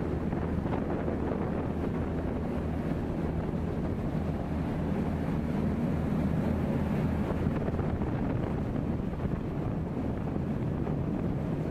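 A boat under way at speed: its engine drones steadily under the rushing of its bow wave and wake along the hull, with wind buffeting the microphone.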